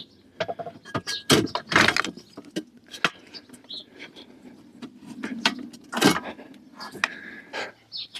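Big flat-head screwdriver levering and scraping at a broken hinge piece wedged in a hollow aluminium chair-frame tube, making irregular clicks, knocks and scrapes as it is forced loose.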